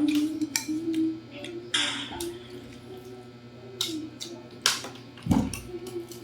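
Scattered clicks and clinks of mussel and shrimp shells and utensils against dishes during a meal, with a short scrape about two seconds in and a heavier knock a little after five seconds.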